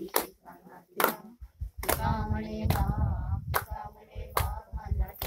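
Hands clapping in a slow, steady beat, a little over one clap a second. About two seconds in, a voice sings for a second or so.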